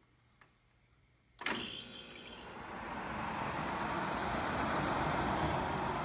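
A sharp click about one and a half seconds in, the compressor's start relay as the converted dehumidifier is switched on. The unit then runs with a steady airy fan noise that builds over the next few seconds. Its Embraco-built Emerson Copeland compressor, charged with R152a, is hard to hear under it.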